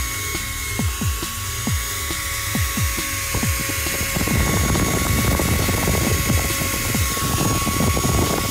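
Electric drill motor running with a steady whine, over background music with a regular thumping beat; from about four seconds in a rough grinding noise joins, as the bit cuts into the workpiece.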